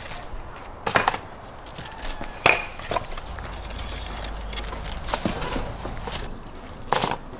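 Metal spit rods and prongs clinking and knocking, about four sharp strikes spread apart, as roasted chickens are worked off the skewers onto a foil-covered table.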